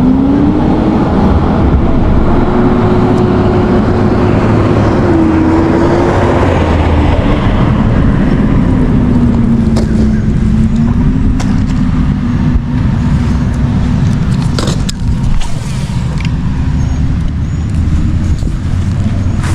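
A boat motor running under way, its drone climbing in pitch as the throttle opens at the start and then wavering up and down, over a steady rush of wind and water. A few sharp clicks come near the end.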